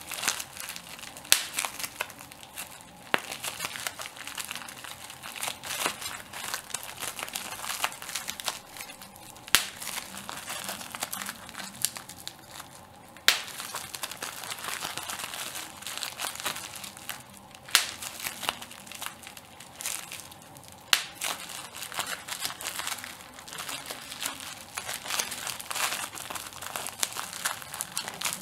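Plastic bubble wrap being squeezed and crinkled by hand, with a run of small crackles and sharp pops as bubbles burst, the loudest snaps every few seconds.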